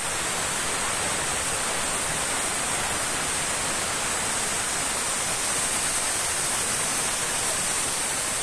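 Aluminium pressure cooker whistling on a gas burner: a loud, steady hiss of steam venting from under the whistle weight, the sign that the cooker has come up to pressure.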